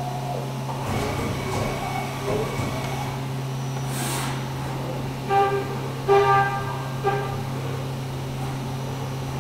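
Haas CNC mill running: a steady machine hum, with a gliding servo whine as the trunnion rotary table tilts the vise, a short hiss about four seconds in, and three brief loud tonal honks between five and seven seconds in.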